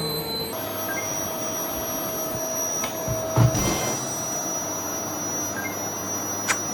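Vacuum cleaner running steadily, with a knock about three and a half seconds in.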